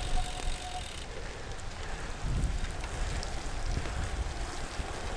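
Bicycle disc brakes squealing on one steady tone in the wet, cutting off about a second in as the brakes are released. Then wind on the microphone and tyres hissing over the wet road.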